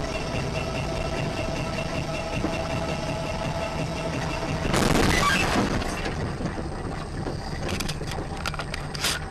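A car runs with steady engine and road noise. About five seconds in, a sudden loud crash lasts about a second. It is followed near the end by a string of sharp knocks.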